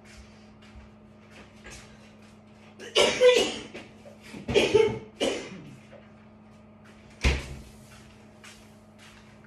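A woman coughing in three short, hard bouts, then a door shut with a single sharp thud.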